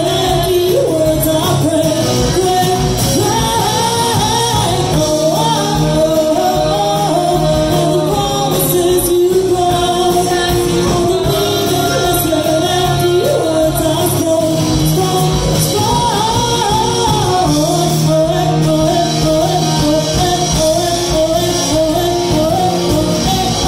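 Live band playing a song: two women singing over electric guitar and drums, loud and steady.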